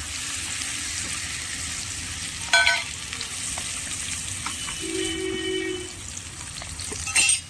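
Tempering of garlic, chillies, mustard seeds, cumin and fenugreek sizzling in hot oil in a kadai, a steady hiss. Two sharp knocks, one about two and a half seconds in and one near the end, are the loudest moments.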